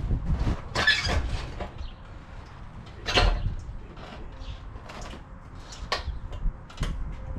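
A heavy rolled-up vinyl inflatable water slide being hauled and tipped onto a hand truck on a trailer floor: irregular scrapes, rustles and knocks, the loudest about three seconds in.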